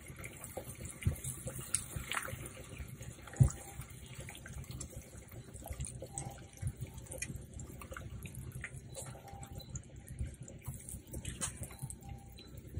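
Silicone spatula stirring a pan of melted butter sauce with garlic, spices and fresh parsley: soft wet liquid stirring with small irregular clicks against the pan, and one louder knock about three and a half seconds in.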